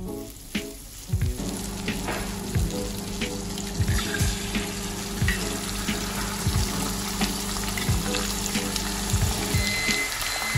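Food sizzling in a frying pan, a steady hiss that starts about a second in, with background music under it.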